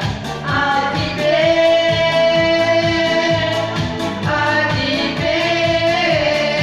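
A vocal duet sings a Russian pop song over a backing band with a steady drum beat, holding two long notes.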